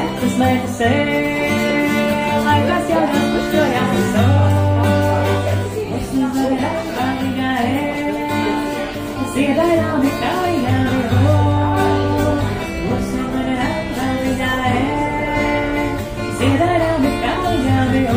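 Woman singing a song while playing an acoustic guitar, through a microphone and PA speaker.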